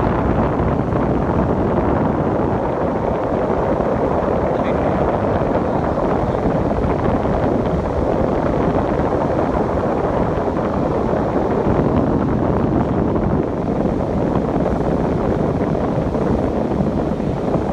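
Wind blowing across the microphone together with surf breaking on the rocks below, making a steady, loud rushing noise.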